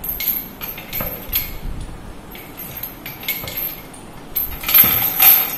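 Metal chain and bar handle of a back-strength dynamometer clinking and rattling as they are handled, a series of irregular clinks that is loudest near the end.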